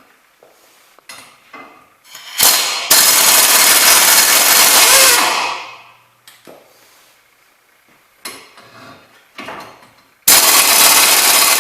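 Power tool running in a loud burst of about three seconds that tails off, with a few light metal knocks after it, then starting up again near the end.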